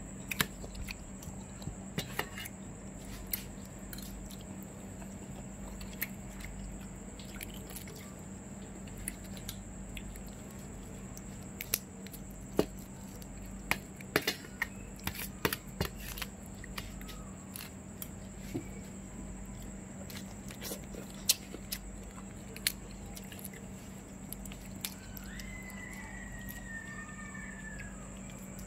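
A person eating grilled barbecue food dipped in sauce: chewing and biting with many scattered small clicks and smacks, over a steady low hum and a constant high-pitched whine.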